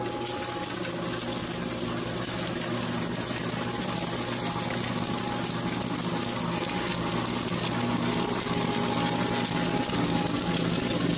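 A machine running steadily: a constant rushing noise over a low hum, growing slightly louder toward the end, with no distinct impacts.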